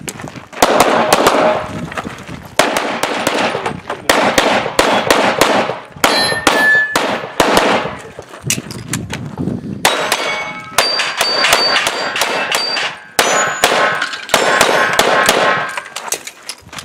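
EMG Customs Open .38 Super compensated race pistol fired in fast strings of shots, each a sharp crack with a metallic ring after it. Brief pauses fall between strings, the longest around nine seconds in.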